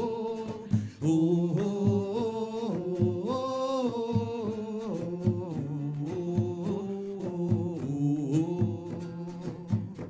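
Live acoustic guitar strummed in a steady rhythm while a man and a woman sing a wordless melody.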